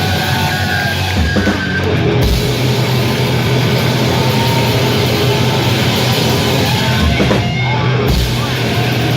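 Sludge metal band playing live at full volume: heavily distorted guitars and bass over drums.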